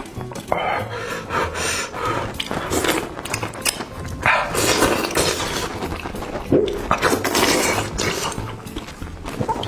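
A person eating noisily into a close microphone: a run of wet mouth sounds and slurps, some lasting up to about a second.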